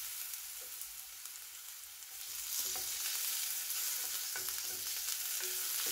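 Cut potato pieces sizzling in hot oil in an iron skillet, a steady frying hiss that grows a little louder about two seconds in. A few faint clicks sound over it.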